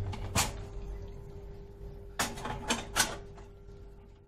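Sharp clicks and knocks of hard stove parts being handled: one about half a second in, then a quick run of four a little after two seconds. A faint steady hum runs underneath.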